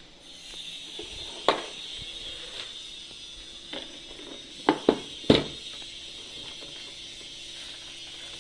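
Handling noise: about five sharp clicks and knocks as equipment is moved about, one early, one near the middle and a quick cluster of three a little past halfway, the last the loudest, over a steady faint hiss.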